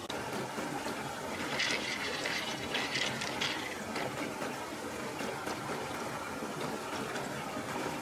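Steady rush of flowing river water, with a few brief splashes about two to three seconds in as hands move a large freshwater mussel shell in the shallows.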